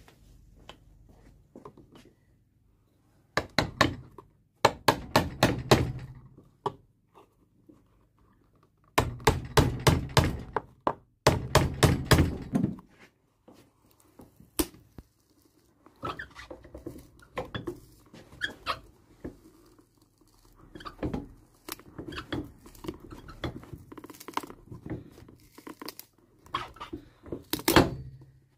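Sharp knocks and cracks as a worn heel block is levered and pried off a shoe with a metal tool. They come in quick clusters of several strokes with short pauses, sparser and softer in the second half, with one loud knock near the end.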